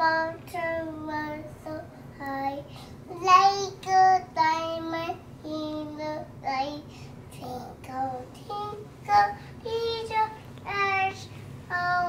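A young child singing in short phrases of held, high notes.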